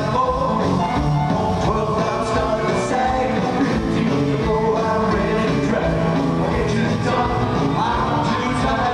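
Live rock band playing, led by electric guitars, as heard from the seats of a large arena.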